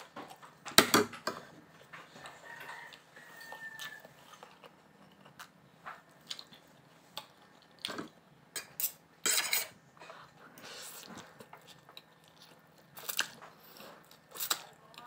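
A person eating pancit canton noodles close to the microphone: short bursts of slurping and chewing, the loudest about a second in, with forks clicking and scraping on a plate.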